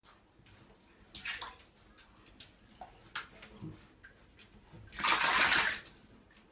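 Bath water splashing and sloshing as miniature dachshunds move about in a filled bathtub: a brief splash about a second in and a louder splash lasting under a second about five seconds in.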